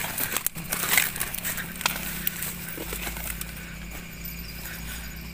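Rustling and crackling of leaves and brush as a person moves through plants, busiest in the first three seconds.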